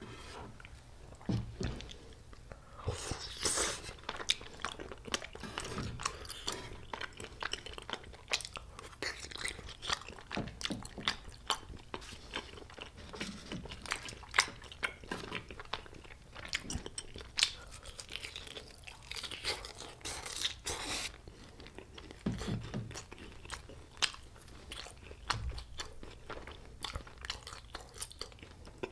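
A person eating close to the microphone: repeated crisp crunching and chewing of battered Korean fried food (twigim), in irregular bites and chews.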